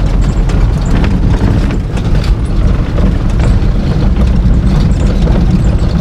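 Motorhome climbing a dirt road, heard from inside the cab: a loud, steady low rumble of engine and tyres, with small knocks and rattles throughout.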